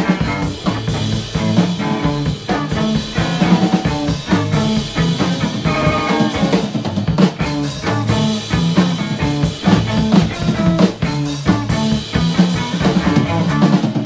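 A rock band recorded live, with drum kit, bass guitar and electric guitar playing a steady, driving beat.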